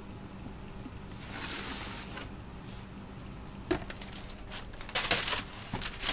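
A wire cooling rack is set down on a stainless steel counter: a sharp click, then a cluster of metallic clicks and rattles about five seconds in, the loudest part. Parchment paper rustles, over a steady low hum.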